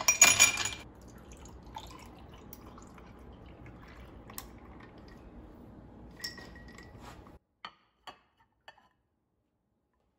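A sharp clatter of glass or ceramic dishware in the first second, then cola fizzing over ice in a drinking glass, with scattered faint clinks and drip-like ticks. The fizz cuts off abruptly about three-quarters of the way through, leaving a few isolated ticks.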